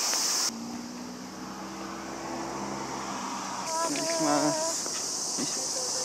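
Summer cicadas buzzing in a steady high drone. The drone drops out about half a second in, where a low steady hum takes over, and comes back a little past the middle.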